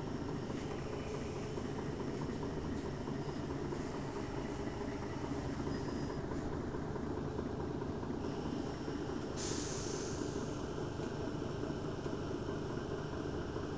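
Mercedes-Benz Citaro city bus's rear-mounted diesel engine idling steadily while the bus stands at a stop. About nine seconds in, a short hiss of released compressed air lasts about a second.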